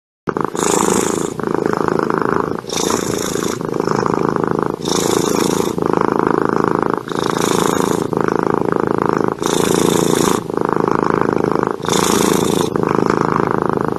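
Domestic cat purring steadily and close up while dozing, with a soft breathy hiss about every two seconds as it breathes.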